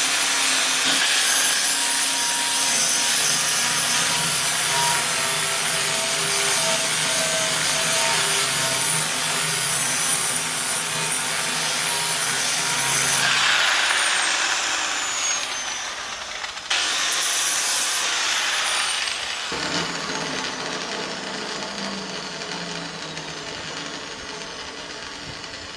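Grinder working on weld seams on a car's front body panel. About halfway through it is switched off and winds down with a falling whine; it is briefly started again, then winds down once more, fading toward the end.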